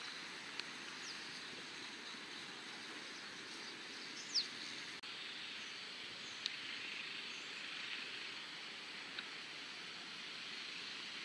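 Steady outdoor background hiss with a few short, high chirps and ticks over it; the loudest is a quick falling chirp about four seconds in. The sound drops out for an instant about five seconds in.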